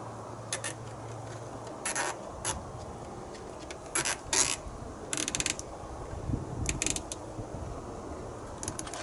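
A strap being ratcheted tight around a metal jerry can on a tyre carrier: irregular sharp clicks, with a quick run of ratchet clicks about five seconds in.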